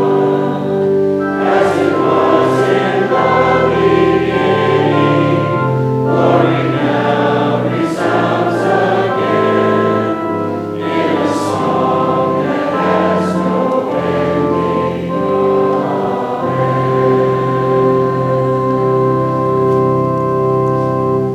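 A church congregation singing a hymn with organ accompaniment, the voices and the steady sustained organ chords moving together. In the last five seconds they hold a long final chord, which cuts off as the hymn ends.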